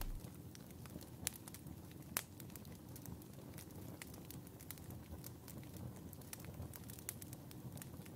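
Faint crackling fire sound effect: irregular sharp pops and snaps over a low rumble, a couple of louder pops in the first few seconds.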